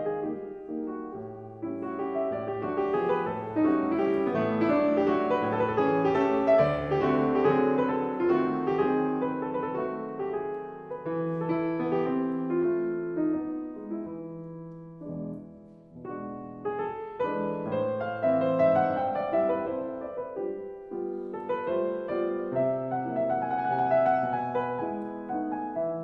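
Solo piano music, a flowing piece of many struck notes that ring and fade, with a short lull about fifteen seconds in.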